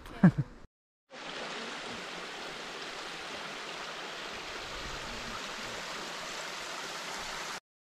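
A small woodland stream running over stones: a steady rush of water that starts abruptly about a second in and cuts off sharply near the end.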